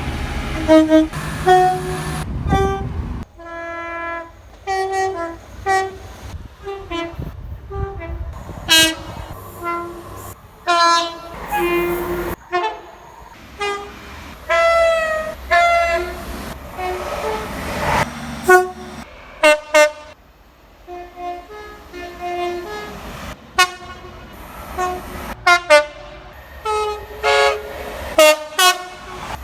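Train horns sounding in a quick run of short blasts, one after another, many of them two-tone horns alternating a lower and a higher note.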